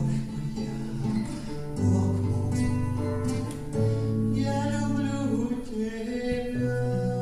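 A man singing a song with acoustic guitar accompaniment, the notes long and held.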